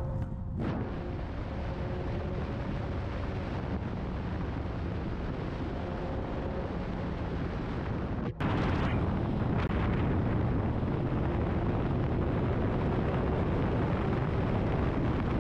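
Ferrari 488 Spider cruising gently with the roof down: a steady low rumble of wind and road noise with the engine faint beneath it, no revving. The sound breaks off briefly a little past halfway and picks up slightly louder.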